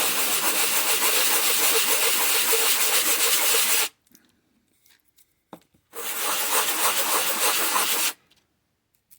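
Sanding the surface of a tin toy drum, in two spells: about four seconds of steady rubbing, a pause, then about two seconds more.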